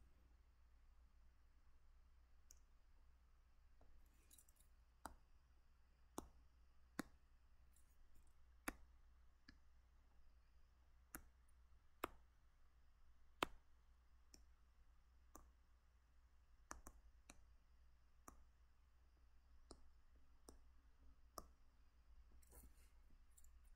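Faint, sharp single clicks at irregular intervals, about one every second or two, from the computer input used to draw lines, over a low steady hum. The loudest click comes about halfway through.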